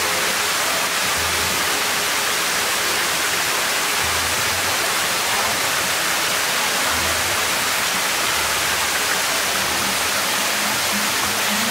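Water from a large public fountain spilling steadily off its stacked copper bowls and splashing into the basin, an even, unbroken rush.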